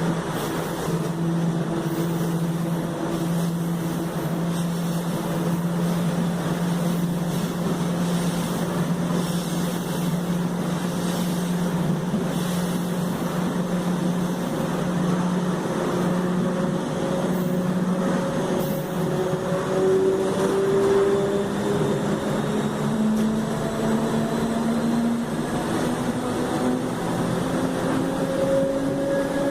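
Traction motors of a Mafersa/Hitachi Série 1700 electric multiple unit humming at a steady pitch, over a constant rushing of the running train. About halfway through the hum turns into a slowly rising whine as the train picks up speed.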